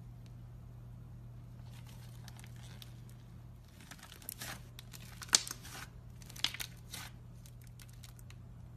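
A hand squishing and kneading thick tan slime mixed with chocolate chunks, making a run of crackly, crunchy pops from about four to seven seconds in. The loudest pop comes a little after five seconds. A steady low hum runs underneath.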